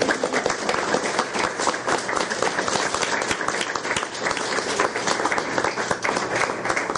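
Audience applauding: many hands clapping at an even level, thinning out and fading near the end.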